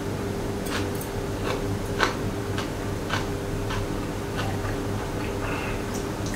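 A person chewing food at close range, with short irregular mouth clicks about one or two a second, over a steady low hum.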